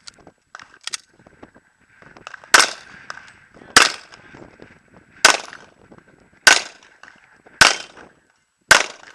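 Handgun shots fired in a slow, steady string: six loud, sharp reports about one every second and a quarter, after a fainter crack about a second in.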